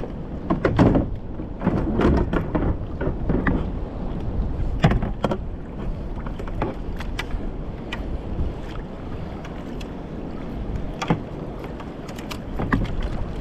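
Sounds from a fishing kayak on choppy water: wind rumbling on the microphone and water against the hull, with scattered knocks and clicks.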